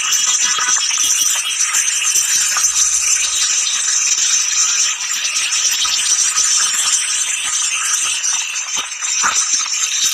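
Many motorcycles running together along a road, heard as a loud, steady, hissy rattle.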